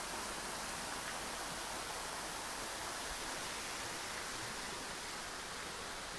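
Steady, even hiss of background noise, with no distinct events and no speech.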